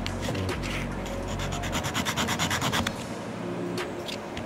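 A small machined PEEK plastic part rubbed quickly back and forth on a sanding block, a fast run of scraping strokes. The strokes pause about three seconds in, then a few more follow.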